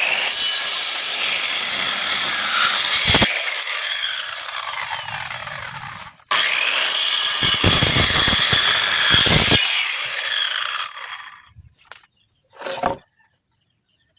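A power saw cutting wood in two long passes, each starting abruptly and lasting several seconds, the motor's pitch bending as it works; the second pass trails off as the saw winds down. A short, sharp sound follows near the end.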